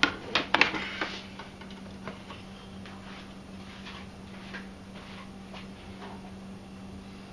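A few sharp clicks and knocks in the first second as the blender jar is handled, then quiet with a faint steady hum and a few light ticks. The blender motor is not running.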